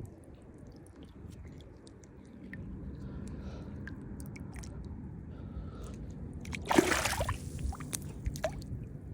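Water sloshing with small wet clicks and squishes, and a short splash about seven seconds in.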